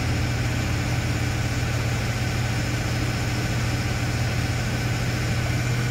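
Fishing boat's engine running steadily under way, a constant low drone, with the rush of wake water along the hull.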